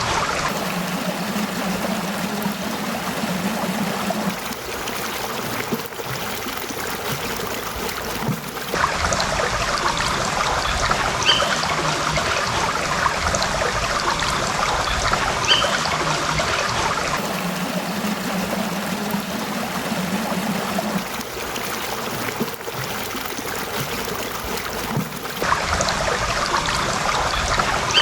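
Small stream trickling and babbling over rocks, a steady rush of water whose character changes abruptly about every eight seconds.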